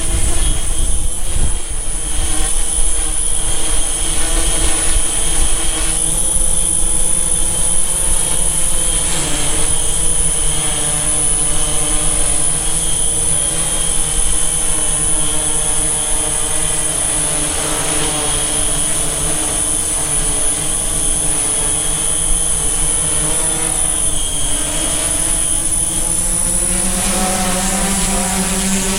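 Large hexacopter drone (DJI S900) flying and hovering, its motors and propellers making a loud steady hum of several pitches that slowly waver as it moves. Near the end the hum climbs in pitch as the drone comes in close overhead.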